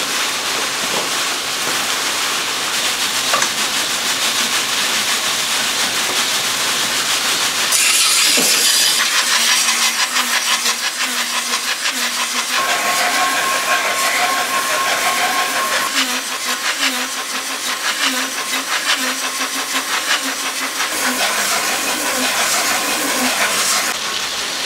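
A kitchen-knife blade ground against a large motor-driven rotating whetstone: a steady, loud hissing grind over the low hum of the motor. It turns brighter and harsher about eight seconds in.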